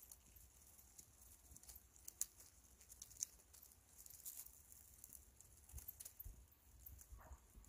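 Near silence: faint scattered ticks and a low rumble, with a faint short sound near the end.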